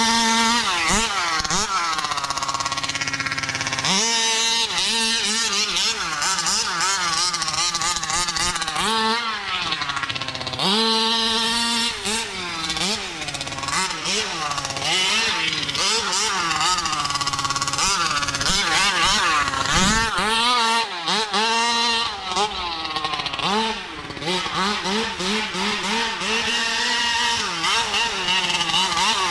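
Taylor 50cc two-stroke engine of a 1/5-scale RC buggy revving hard and backing off over and over as it is driven, its pitch sweeping up and down repeatedly, with a couple of stretches held at high revs of around 12,000 to 15,000 rpm.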